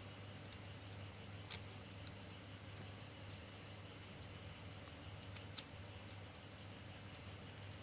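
Faint, scattered light clicks and ticks of small metal parts such as screws and nuts being handled during work on a sewing machine clutch motor, over a low steady hum.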